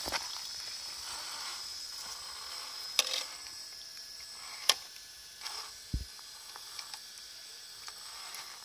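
Radio-controlled rock crawler (Axial SCX10 Jeep Wrangler G6) crawling slowly, its electric motor and gearbox giving a steady high whine. Two sharp clicks come about three seconds in and a second and a half later, and a low thump a second after that.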